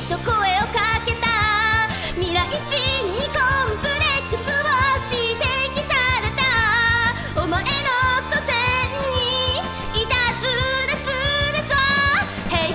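A woman singing a Japanese pop song, the melody held in long notes with vibrato, over a full instrumental backing track.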